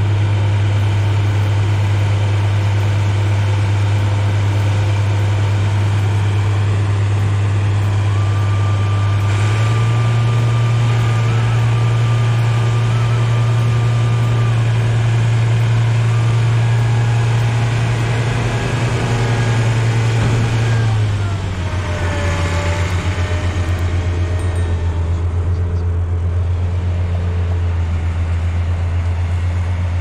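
New Holland 8080 combine harvester running close by, its diesel engine and threshing and straw-chopping machinery droning steadily as it discharges chopped wheat straw onto a heap. The engine note rises slightly about nine seconds in and drops lower at about twenty-one seconds, with a faint thin whine in between.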